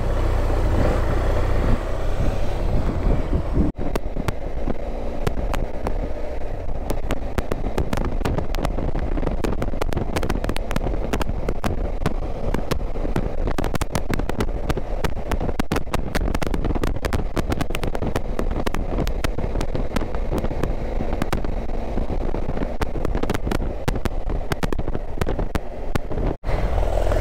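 Motorcycle under way: engine and heavy wind rumble on the microphone, with dense crackling and ticking throughout, and two abrupt breaks, one about four seconds in and one near the end.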